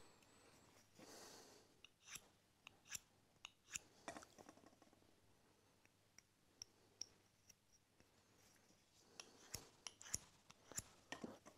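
Near silence broken by a few faint, scattered clicks and light scrapes of small steel secateur blade parts being handled in the fingers, a cluster a few seconds in and more near the end.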